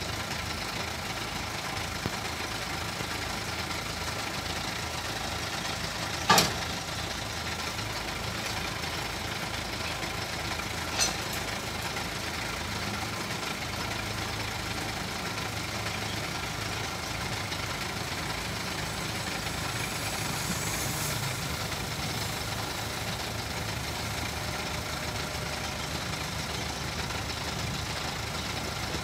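Mini excavator's diesel engine running steadily, with a sharp knock about six seconds in and a lighter one about five seconds later.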